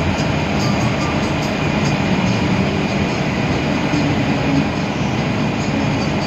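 Steady engine and road noise of an air-conditioned intercity bus under way, heard from inside the cabin.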